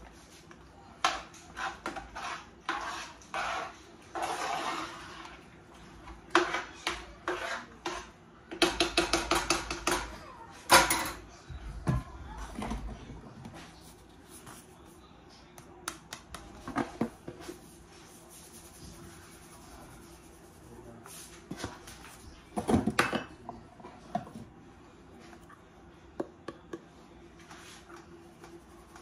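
Cooking clatter: metal utensils clinking and scraping against a pan and spoon rest in scattered bursts, with a fast run of rattling about nine seconds in and another clatter near the end.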